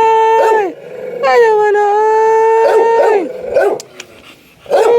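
A dog howling: long drawn-out howls that hold a steady pitch and drop away at the end, one finishing just under a second in, another from just over a second to about three seconds, and a third starting near the end. Short yips overlap the howls.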